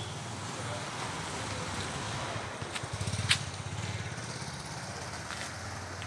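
A small engine running steadily with a low, even chugging. A few sharp clicks sound over it, the loudest about three seconds in.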